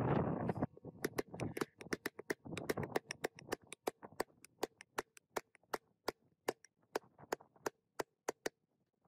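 A metal drift struck with light hammer taps to drive a ball bearing into its seat in an aluminium crankcase half of a KTM 50 mini two-stroke engine: a steady run of sharp metallic taps, about three a second, after a brief rustle of handling.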